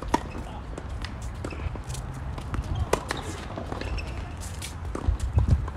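Tennis racket strikes on the ball during a rally, heard as a few sharp pops several seconds apart: a serve right at the start, then more hits about three and five seconds in.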